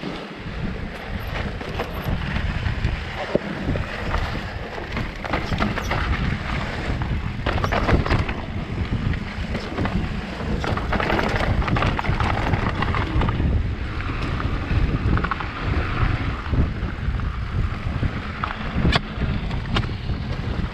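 Mountain bike descending rough, rocky singletrack, heard from a microphone on the bike or rider: heavy wind buffeting on the microphone over the rumble and rattle of the bike, with many short sharp knocks as the wheels hit stones.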